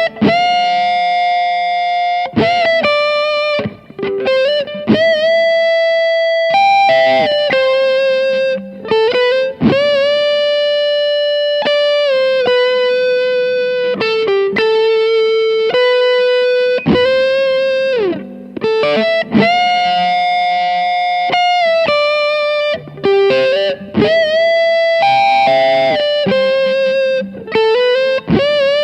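Gibson Custom Shop '59 Les Paul Standard reissue electric guitar, amplified, playing a single-note lead melody. The notes are sustained and often bent, with vibrato, and there are brief gaps between phrases.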